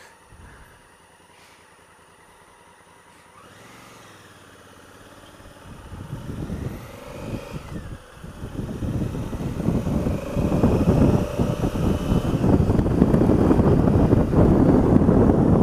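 Honda Africa Twin CRF1000L parallel-twin motorcycle, faint while stopped, then pulling away and riding. A gusty rush of wind on the microphone grows loud from about halfway and covers the engine.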